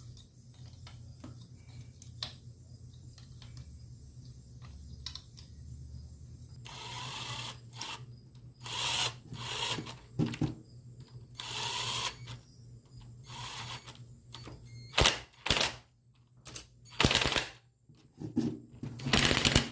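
Bolts being tightened on a YX 140cc pit bike engine. A few faint clicks come first; from about six seconds in there are repeated short bursts of tool noise, each about a second long, and sharp clicks near the end.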